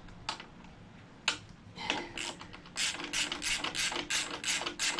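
Small hand ratchet wrench clicking as it is swung back and forth: a few single clicks at first, then from about three seconds in a quick, even run of clicks, about four a second.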